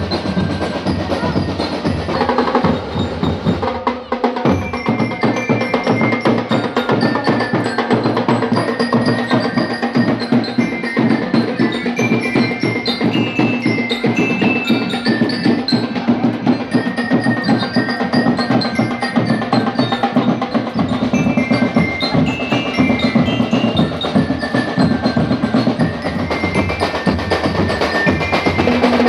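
Background music with a steady percussion beat and short bell-like mallet notes.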